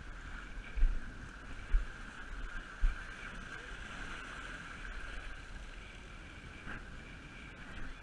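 Wind buffeting the camera microphone, with three hard low thumps in the first three seconds, over a steady wash of choppy water against jetty rocks.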